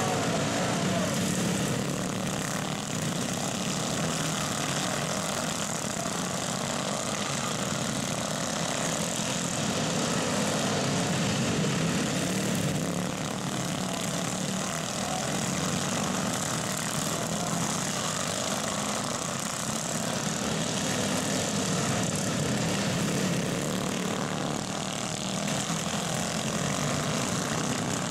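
Several racing garden tractors' small engines running together as they race, a steady overlapping engine drone.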